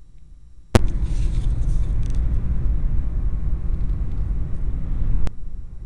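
Low, steady rumble of a car driving, as heard from inside the cabin. Two sharp clicks, about a second in and about five seconds in, bracket a stretch where the rumble is much louder; the rumble drops once the camera settles into place.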